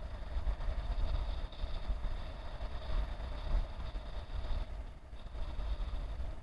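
Wind rumbling unevenly on the microphone over a steady, distant mechanical drone, with no distinct events.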